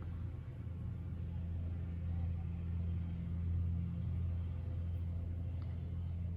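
Steady low rumbling hum, slightly swelling in the middle.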